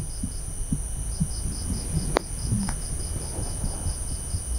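Crickets chirping in a quick, even pulse, about four chirps a second, over a low rumble. A single sharp click about two seconds in.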